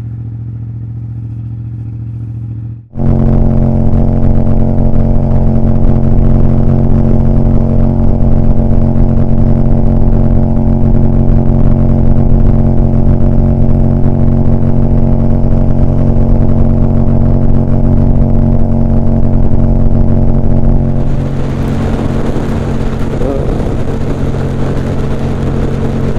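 Yamaha MT-07's parallel-twin engine with an Akrapovic titanium exhaust running at steady revs. It comes in much louder about three seconds in and holds one pitch, and a rushing noise joins near the end.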